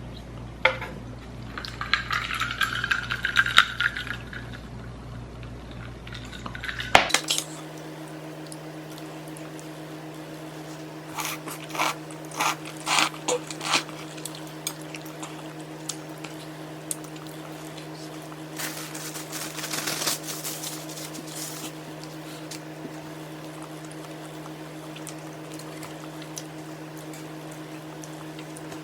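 A drink poured into a glass, its pitch rising slightly as it fills, followed by scattered clinks of utensils against bowls and dishes. A steady low hum comes in about seven seconds in.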